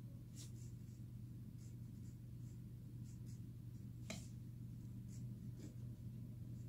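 Faint rustling and soft taps of a picture book's paper pages being handled, over a low steady hum; the clearest rustle comes about four seconds in.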